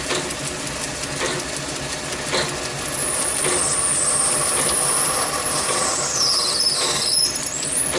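Small lathe running while a number 38 twist drill in the tailstock chuck bores a tapping hole for a 1/8 Whitworth thread into the end of a spinning brass rod. About three seconds in, a high squeal from the drill cutting sets in over the machine's steady running; it slides lower in pitch and climbs back up near the end.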